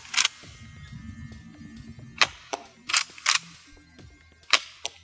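Tokyo Marui KSG gas airsoft pump shotgun being fired: a series of sharp pops and mechanical clacks, about five in all, spread across a few seconds with gaps between them.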